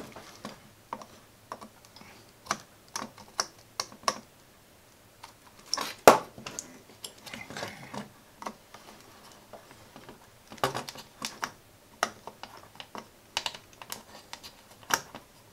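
Irregular small clicks and taps of a soldering iron's tip working against the solder joints of a hand-held circuit board while a transistor is being desoldered, with one sharper click about six seconds in and a small cluster of taps near eleven seconds.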